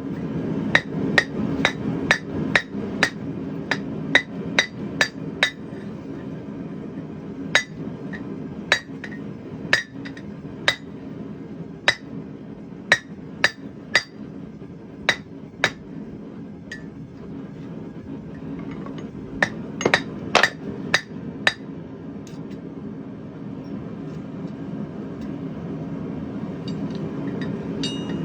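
Hand hammer striking steel on an anvil in runs of about two blows a second, each blow ringing with a bright clink, as the bottle opener's eye is stretched; the strikes pause briefly past the middle and stop for the last several seconds. A steady low hum runs underneath.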